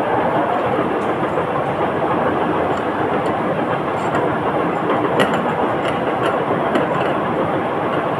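Milling machine running with a steady, even mechanical noise, with a few faint clicks over it.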